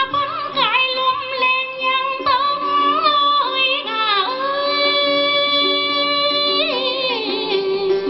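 A woman sings a Tày folk song in a high voice with vibrato and sliding ornaments, holding one long note from about halfway to near the end, over a steady instrumental accompaniment.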